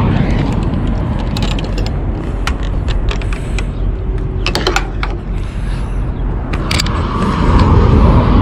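Scattered sharp clicks and mechanical rattles over a steady low rumble.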